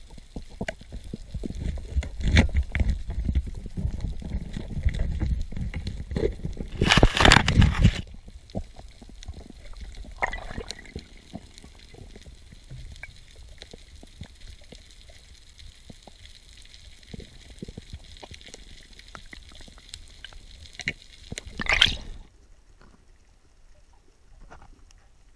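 Underwater sound picked up by a diving camera during a spearfishing dive: low rumbling water movement with faint clicks and knocks, and a loud rushing gush about seven seconds in and again near twenty-two seconds.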